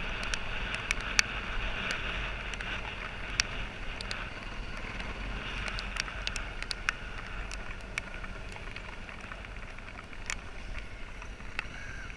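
Dirt bike running at low speed over a bumpy dirt path, heard from a helmet-mounted camera, with frequent sharp clicks and knocks from the rough ground.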